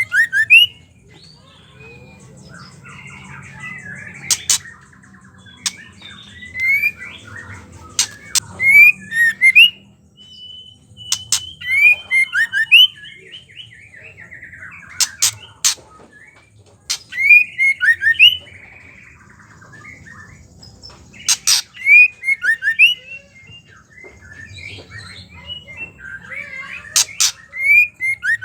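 Female white-rumped shama chattering: clusters of sharp clicks and short downward-slurred chirps every few seconds, with a longer, higher held note about eleven seconds in.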